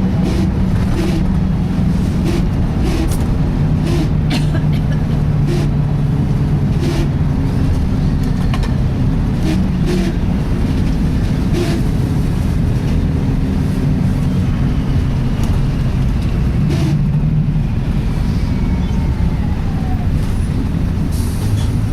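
Volvo B10BLE single-deck bus running on the road, heard on board: a steady engine and driveline drone with a loud recurring 'sweeping' noise, the sign of a fault the owner calls a serious problem. A whine slowly falls in pitch in the last third.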